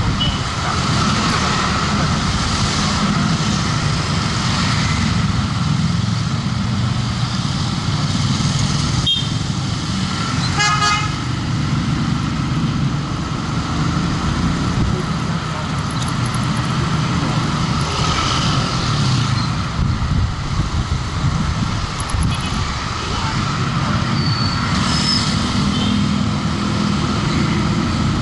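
Steady engine and road noise of riding a motorcycle through city street traffic, with a short vehicle horn toot about eleven seconds in.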